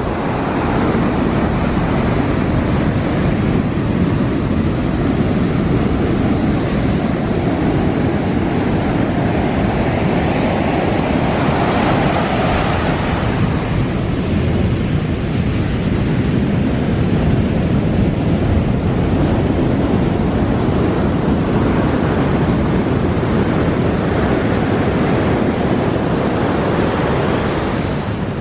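Ocean surf breaking on the shore and rocks: a steady, heavy rush of water with wind on the microphone. A brighter, hissing wave crash stands out for a couple of seconds about halfway through.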